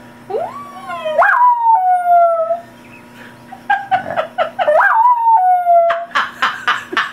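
Dog howling in two long howls, each gliding up in pitch and then falling with sudden breaks, set off by a recorded police siren. A quick run of short, sharp sounds follows near the end.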